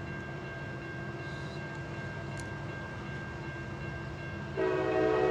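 Low steady rumble of an approaching train with a few faint steady tones above it. About four and a half seconds in, a locomotive air horn starts blowing loudly and holds.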